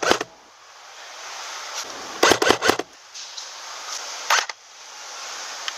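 Airsoft gun firing a short rapid burst of sharp clicks about two seconds in, then a quicker couple of shots a little after four seconds.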